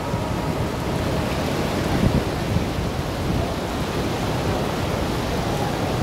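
Wind buffeting the microphone: a steady low rumbling noise that keeps rising and falling a little.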